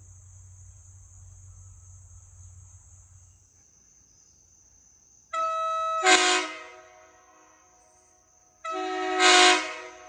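Nathan five-chime air horn sounding two short honks, about three seconds apart. Each honk is a chord of several steady tones that swells louder just before it cuts off.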